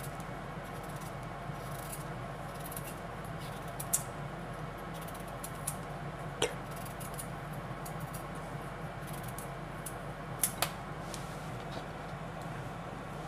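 A kitchen knife slicing a raw carrot held in the hand: a handful of sharp, crisp clicks as the blade cuts through, two of them close together near the end, over a steady low background hum.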